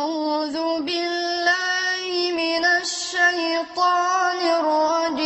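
A boy's solo voice chanting unaccompanied in a melismatic style: long held high notes with small ornamental turns and slides, broken by a few short breaths.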